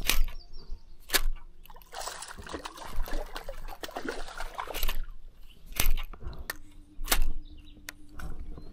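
Water sloshing and lapping against a small fishing boat's hull, with a few sharp knocks. A steady low hum comes in about two thirds of the way through.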